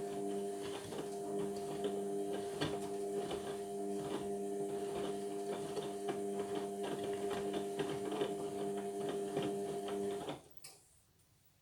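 Indesit washing machine motor turning the drum, a steady whine with many small clicks and knocks from the tumbling load, which stops suddenly near the end: the pause between drum rotations in the wash cycle.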